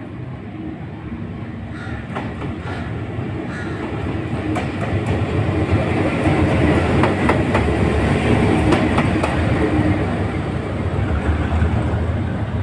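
Diesel-electric locomotive running past close by, its engine rumbling and its wheels clicking over the rails. The sound builds to its loudest about halfway through, then eases slightly as the locomotive moves off.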